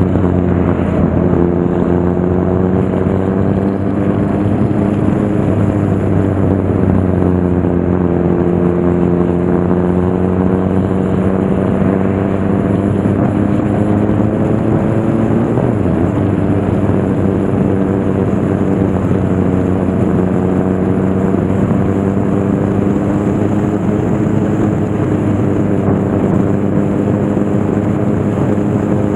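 Motorcycle engine running at fairly steady revs while riding, over a steady rushing noise. The engine note drifts slowly up and down, with a change in pitch about halfway through.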